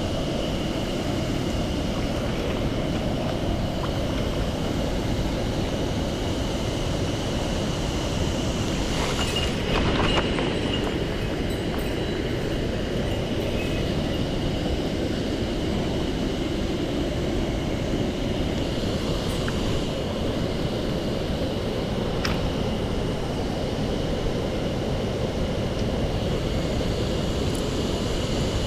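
Steady rushing of a mountain stream's flowing water, a constant full noise with no break.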